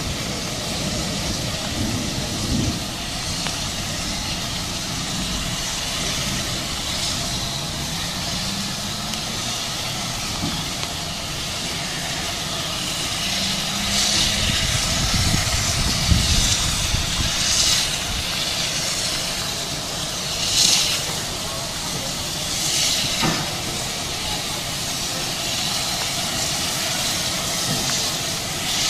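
Steam locomotive moving slowly tender-first, with a steady hiss of steam and a low rumble. Several short louder bursts of steam hiss come in the second half.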